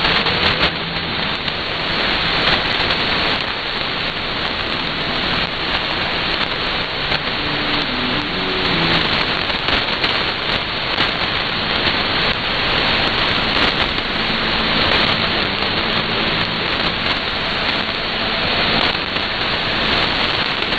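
Shortwave receiver audio tuned to a weak broadcast on 6160 kHz in synchronous AM: a steady, dense hiss of static with its top cut off by the receiver's narrow filter. Faint snatches of music from the station show through the noise about eight seconds in and again near the end.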